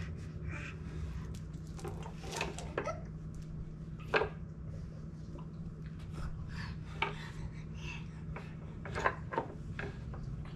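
Scattered light knocks and clatter of small plastic toys being handled against a wooden toy box, with a few sharper knocks, over a steady low hum.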